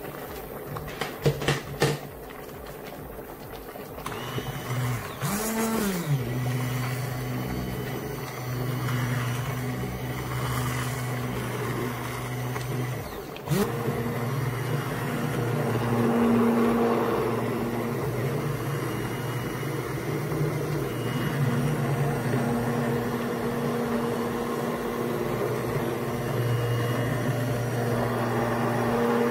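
Hand-held immersion (stick) blender running in a pot of cooked lentil soup, puréeing it into a cream: a steady motor hum that changes a little as it works through the soup. It starts about five seconds in after a few knocks, stops briefly about halfway with a click, then runs on.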